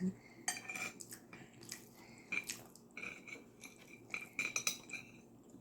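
Cutlery clinking and scraping against plates during a meal: a string of short, sharp clicks, some with a brief ringing tone.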